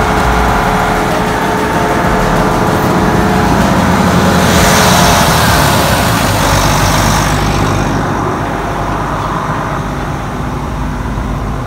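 Volvo EC480D excavator's diesel engine running steadily, louder and hissier for a few seconds around the middle as the open engine bay comes close.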